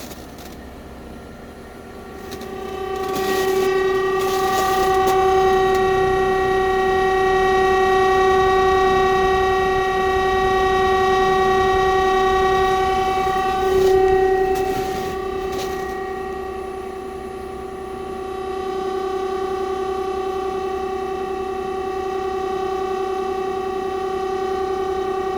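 Heat pump making an unusual, loud, steady droning tone at one pitch with many overtones. It swells up about three seconds in, surges briefly around fourteen seconds, then settles a little quieter.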